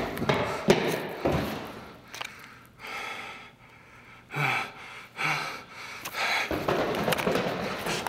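Irregular thumps and knocks, followed by several short gasping, breathy sounds.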